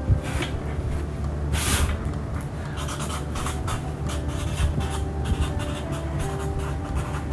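Felt-tip markers stroking across poster paper in many short, irregular strokes as two people write and draw at once, over a steady low hum.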